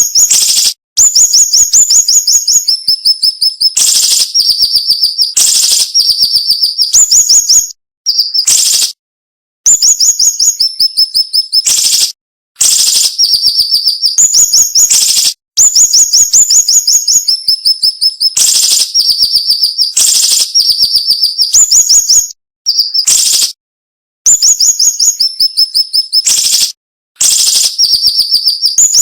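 Siri-siri bird singing: loud phrases of rapid, sharp, closely packed notes, often stepping down in pitch partway through. The phrases come back to back with only brief pauses between them.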